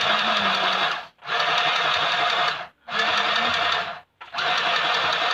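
Portable electric sewing machine stitching in short runs, stopping abruptly three times and starting again each time.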